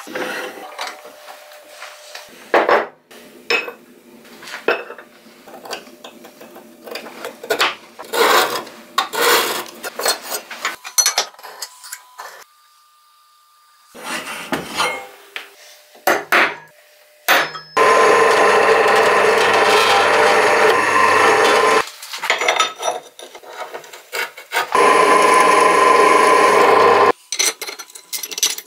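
Workshop tool work on steel parts: a string of knocks, clicks and scrapes, then two loud, steady runs of a power tool, the first about four seconds long and the second about two, in the second half.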